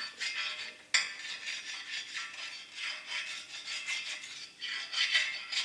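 Stick arc welder's arc crackling as a bead is laid, an uneven crackle that swells and fades, with a sharp start about a second in.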